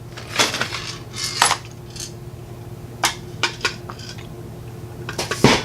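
Scattered small metallic clicks and clinks of a mortise lock cylinder and its parts being handled as it is taken apart. Near the end comes a louder crash: a chair falling over.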